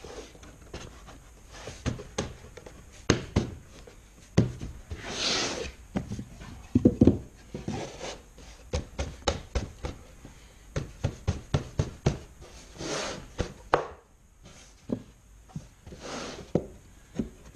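Wooden paddle boards being knocked by hand into a tight fit between the two plywood discs of a wooden water wheel: a long, uneven run of sharp wooden knocks and taps, with a few heavy breaths between them.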